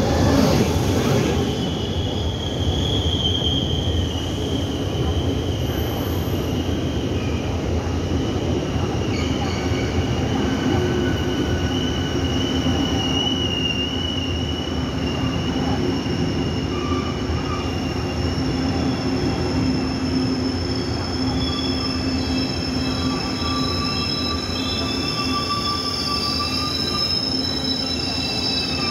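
Taiwan Railway E1000 push-pull Tze-Chiang express arriving at a platform and slowing, with a loud rush in the first second as the power car passes. Steady rumble of the passing coaches with a high wheel-and-brake squeal, which spreads into several squealing tones in the second half.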